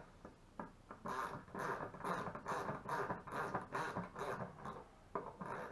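Molded-plastic poultry nipples being screwed by hand into the threaded holes of a plastic 5-gallon bucket: short scratchy rasps of plastic threads turning, about two a second, one with each twist.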